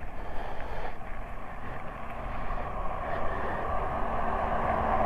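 Road traffic noise from a busy highway with heavy trucks, a steady rush that grows louder toward the end, over low wind rumble on the microphone.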